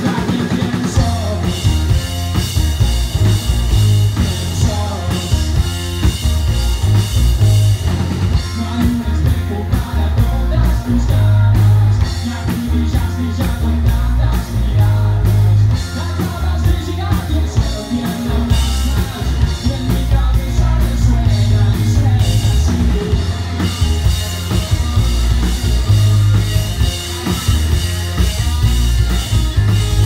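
Live rock band playing amplified through a PA: drum kit, electric guitar and electric bass with a lead singer, heavy in the low end.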